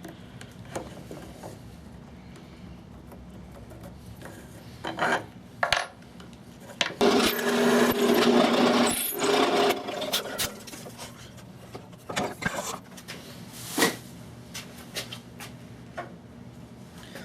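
Hand work on oak workpieces: scattered knocks and scraping of wood being handled, with a louder rasping stretch of about two seconds near the middle.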